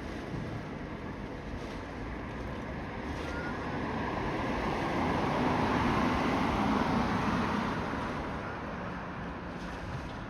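Road traffic: a passing vehicle whose tyre and engine noise builds to a peak about six seconds in and then fades away.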